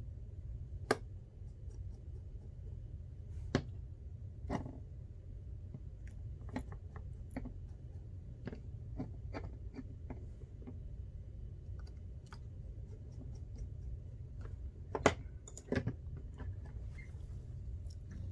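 Scattered small clicks and taps from handling an opened iPhone XR and its parts while reconnecting the battery during reassembly, a few sharper clicks standing out, over a low steady hum.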